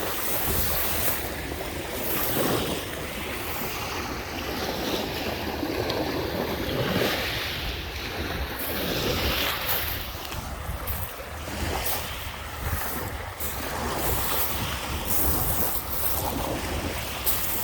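Lake Michigan waves washing onto the beach, swelling and fading every few seconds, with wind buffeting the microphone.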